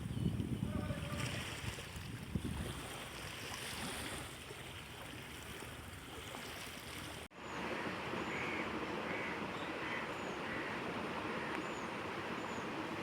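River water splashing and rushing, with a low rumble that sounds like wind on the microphone. About seven seconds in it cuts abruptly to a steady outdoor hiss with short bird calls repeating about twice a second.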